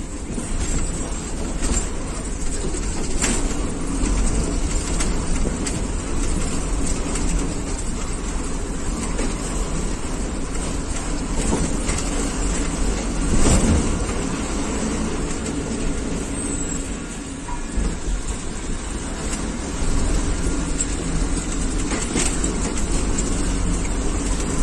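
Inside a moving bus: a steady low rumble of engine and road noise with rattles and knocks from the cabin, and one louder jolt about halfway through.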